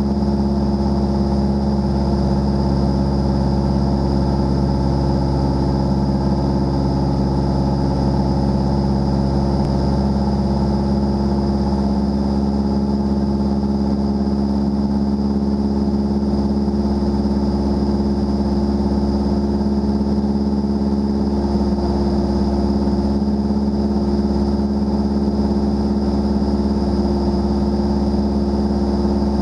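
Single-engine light airplane's engine and propeller running steadily in flight, one constant drone.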